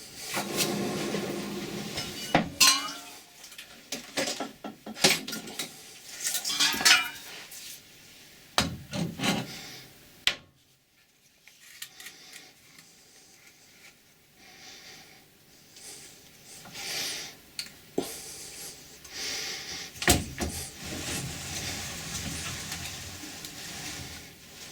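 Metal parts and tools being handled at a Colchester lathe while its faceplate is refitted: irregular metal clinks, knocks and scraping, with two ringing clanks about a third of the way in and a short quiet pause near the middle.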